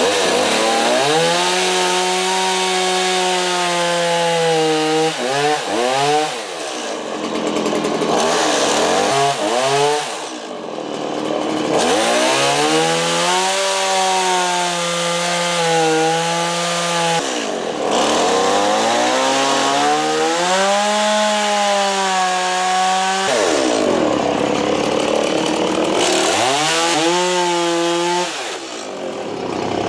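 Stihl MS 170 two-stroke chainsaw cutting into a block of wood, the bar dug straight in. The engine runs at high revs with its pitch sagging and rising under load, and eases off several times between cuts before revving up again.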